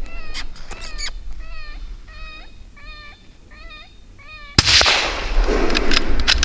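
An electronic predator call plays a repeated whining distress cry, about two short wavering cries a second. About four and a half seconds in, a sudden loud rifle shot cuts across it, followed by a long rumbling tail.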